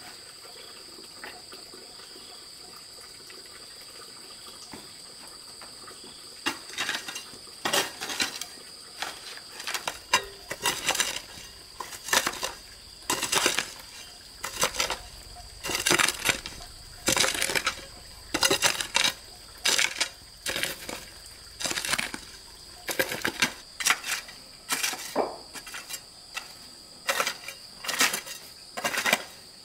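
A hand hoe's metal blade chops and scrapes into loose dirt in repeated strokes, about one a second, starting about six seconds in. A steady high insect drone runs underneath.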